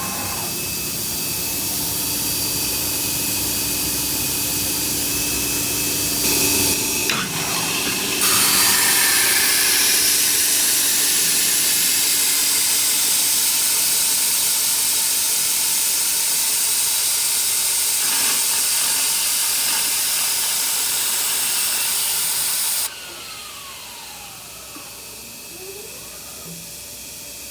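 Morbidelli Author 430S CNC woodworking router running, a steady high-pitched rushing noise that gets louder about eight seconds in. About three quarters of the way through it drops off sharply, followed by a falling whine as the machine winds down.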